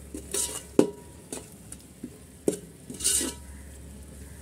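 Metal spoon stirring masala frying in oil in a metal pot: a few sharp knocks and short scrapes of the spoon against the pot, over a faint sizzle.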